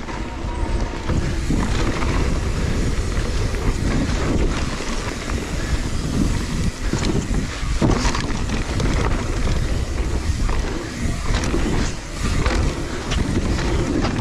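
Wind buffeting an action camera's microphone on a fast mountain-bike descent, with tyres rolling on loose, dry dirt and short knocks and rattles from the bike over bumps and jumps.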